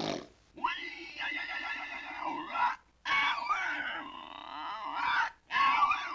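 Vintage cartoon comedy vocal sound effects: three wavering, pitch-gliding vocal calls of about two seconds each, one after another with short gaps between.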